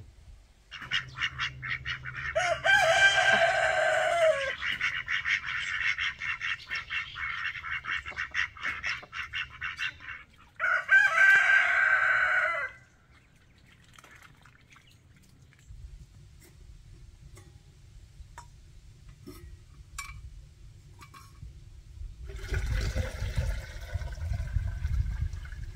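A rooster crowing: a long crow about three seconds in, a second one about eleven seconds in, and another, quieter call near the end, with rapid rattling calls running through the first ten seconds.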